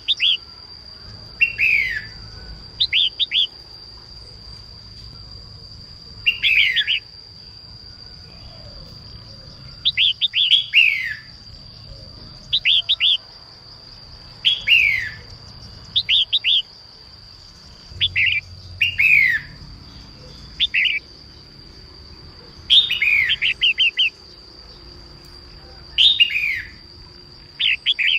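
Female red-whiskered bulbul calling in short, chirpy phrases, mostly falling in pitch, repeated every second or two. A steady high tone runs underneath.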